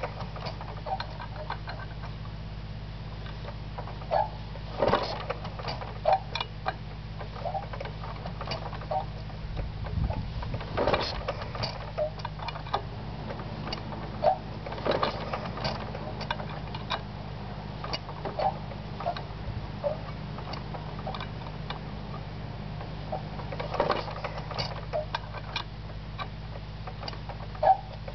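1938 Fairbanks Morse model ZD 1.5 hp throttle-governed gasoline engine being hand-cranked in a stubborn start, not yet running: irregular clicks and knocks from the crank and engine as it is turned over, with louder knocks now and then, over a steady low hum.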